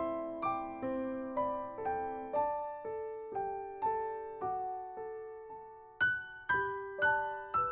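Calm instrumental piano music: single notes struck about twice a second in slow, gently falling arpeggios, each note ringing and fading, with a brighter, louder phrase beginning about six seconds in.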